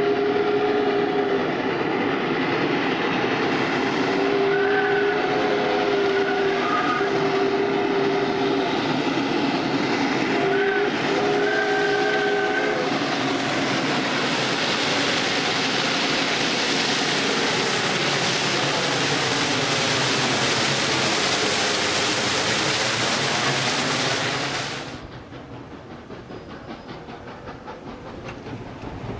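Steam whistle of CPR 3716, a 2-8-0 Consolidation steam locomotive, sounding a series of blasts, the last four long, long, short, long. After that comes a loud, rising hiss of steam and exhaust as the locomotive works hard with its train and passes close. About 25 s in it cuts off sharply to quieter rolling train sounds.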